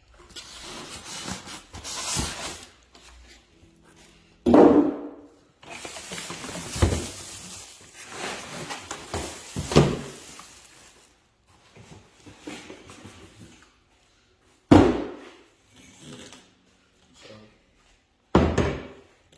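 Sander parts and accessories being handled and unpacked: a few sharp knocks as hard pieces are set down or bumped, with rustling of packaging in between.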